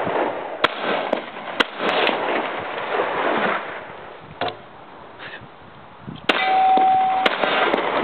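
Glock 21 .45 pistol fired in single shots, about five spread a second or more apart. Near the end comes a steady ringing tone lasting about a second.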